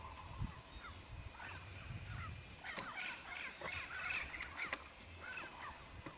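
Birds calling in the background: many short, quick chirps and squawks, busiest in the middle, over a low rumble of wind on the microphone.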